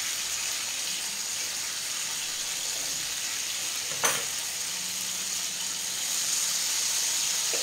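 Tuna steaks sizzling steadily in a frying pan, with a single sharp knock about four seconds in.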